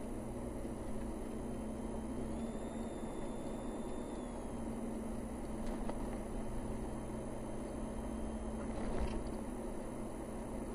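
A vehicle driving at an even pace on a paved road, heard from inside: steady engine hum and tyre noise, with a short knock about nine seconds in.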